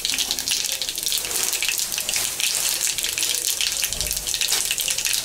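Tempering spices (cumin seeds and split dal) frying in hot oil in a kadai, with a steady sizzle and fine crackling throughout.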